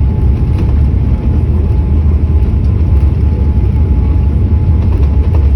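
Boeing 787-8 airliner heard from inside the cabin on the ground after landing: a loud, steady low rumble with a faint, steady high whine above it.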